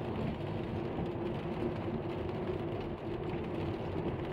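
Car driving on a rain-wet street, heard from inside the cabin: a steady mix of engine and tyre noise with a constant low hum.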